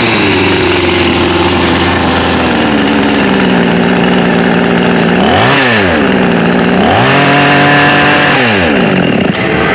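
Two-stroke petrol chainsaw engine running, now with a new spark plug fitted after the old plug had failed and made it misfire. It runs steadily at low speed, is revved briefly about halfway, then revved again and held higher for a second or so near the end before settling back.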